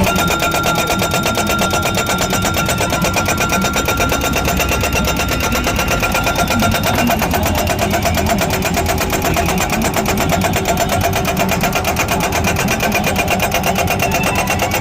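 Tractor-mounted hammer machine for crash-barrier posts running with a fast, even machine rhythm. A thin high whine stops about seven seconds in.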